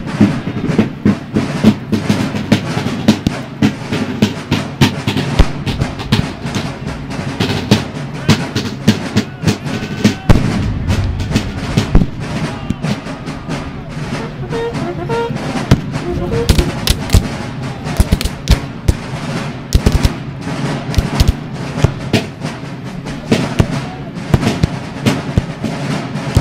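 Sustained, irregular black-powder musket fire from Civil War reenactors' rifle-muskets, many shots a second, some of them loud sharp cracks.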